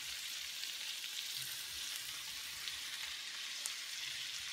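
Sliced onions and green bell peppers sautéing in a square nonstick skillet: a steady sizzle with a few faint crackles.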